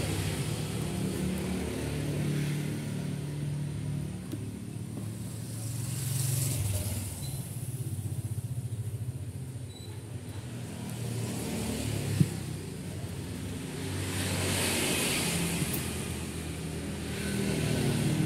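A motor vehicle engine running steadily, with two louder swells of passing traffic and a single sharp knock about two-thirds of the way through.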